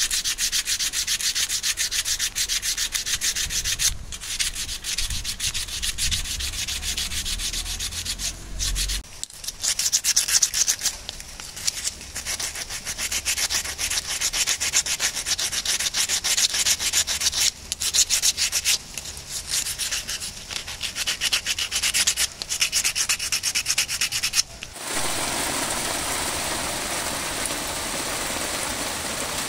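A lapsi-wood spoon rubbed back and forth in rapid strokes on the gritty top of a log stump to sand it smooth, with a few short pauses. About 25 seconds in, this gives way to the steady hiss of rain falling on wet concrete.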